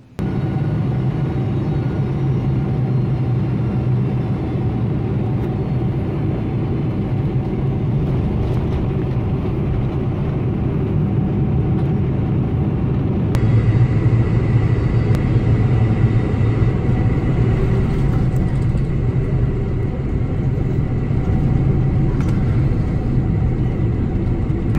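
Steady low rumble of engine and airflow noise heard on board a Boeing 747 during a landing. About 13 seconds in the sound cuts to another take that is slightly louder, with a faint steady high tone.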